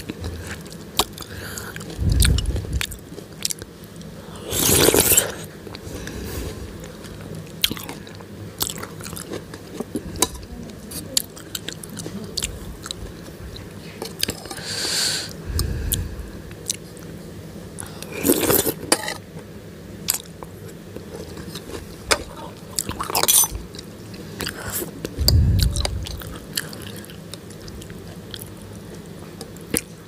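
Close-up eating of spicy soupy Maggi instant noodles: chewing and smacking, several slurps of about a second each, and small clicks of a metal fork and spoon on a ceramic bowl. A few low thumps are spaced through.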